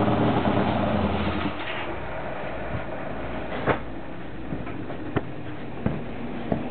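Triton 650's Triumph parallel-twin engine running with its carburettors not yet tuned, then dying away about a second and a half in. After that there are only a few sharp clicks over a low background.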